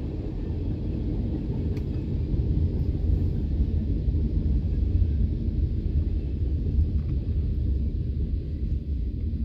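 Norfolk Southern freight train cars rolling past, a steady low rumble heard from inside a stopped vehicle's cab.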